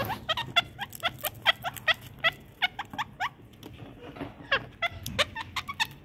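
Rose-ringed parakeets chirping in a rapid, even series of short rising squeaks, about four a second, each with a sharp click at its start.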